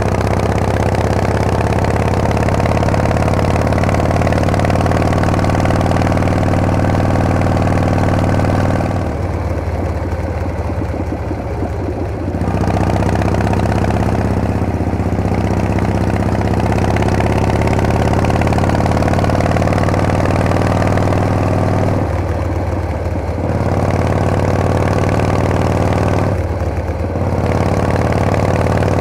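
Harley-Davidson Panhead V-twin engine running steadily on the road, its pitch drifting slowly. It drops and thins out for about three seconds roughly nine seconds in, and twice more briefly later, as the throttle is eased off, then picks up again.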